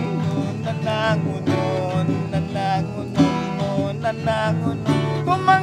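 Acoustic guitar strummed in a steady rhythm, with a man singing a folk song over it.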